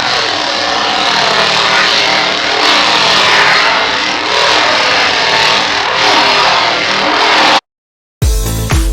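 Chainsaw engine running at high speed and revving up and down, then cutting off suddenly near the end; music with a beat starts right after.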